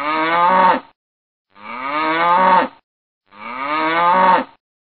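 A cow mooing three times, about a second and a half apart, each moo about a second long and rising in pitch before dropping off at the end.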